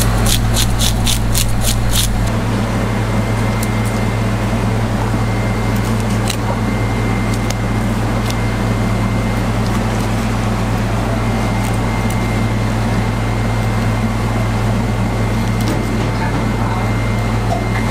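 A fish scaler raked quickly along a whole fish's skin on a wooden cutting board, about four strokes a second for the first two seconds, then only scattered scrapes and clicks of scaling and cutting. Under it runs a steady low machine hum with a thin, high steady tone.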